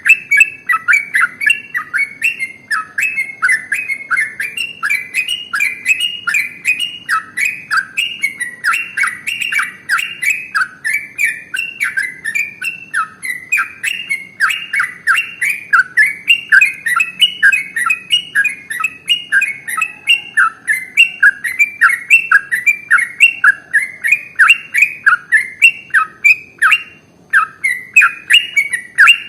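Yellow-vented bulbul (trucukan) singing a long, unbroken 'ropel' run of rapid chirping notes, several a second, with a brief pause near the end.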